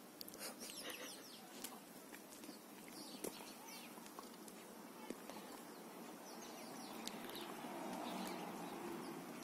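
Yellow rubber screaming chicken toy being squeezed, letting out a drawn-out squawk that swells in the last couple of seconds.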